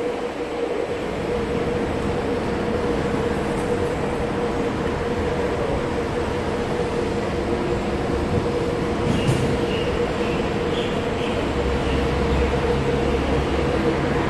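Singapore MRT East-West Line train running: a steady rumble with a constant hum, a single click about two-thirds in, and a deeper low drone building toward the end.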